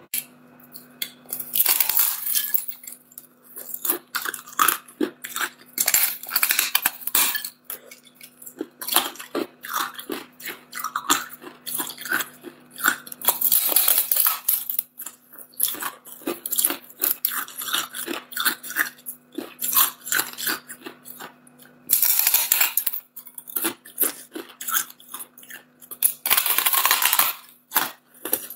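A person biting into a block of hard clear ice and chewing the pieces: rapid sharp cracks and crunching, again and again throughout, with a few longer bouts of grinding crunch.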